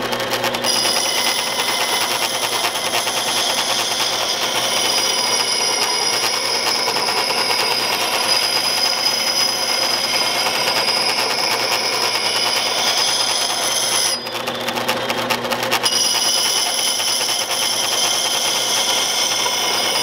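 Old Sedcon garage door opener motor running with a fast, steady rattle as it turns a wet grindstone through a double cog reduction, while a steel blade is held against the wet stone with a high, steady scraping hiss. The grinding hiss stops for a couple of seconds past the middle, then resumes, and the motor keeps running.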